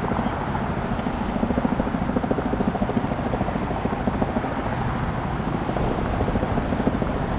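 Continuous vehicle noise: a steady rumble with a rapid pulsing beat.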